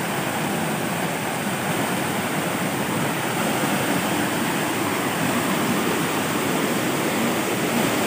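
Steady rushing of a shallow rocky stream tumbling over rock ledges at a small waterfall.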